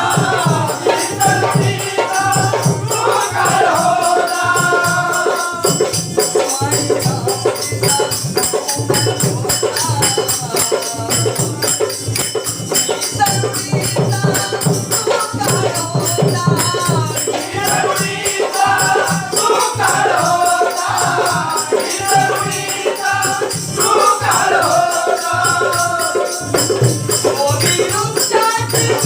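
Marathi Buddhist vandan geet (salutation song) sung by a group over a steady rhythmic percussion accompaniment, the sung phrases coming and going between stretches of instruments.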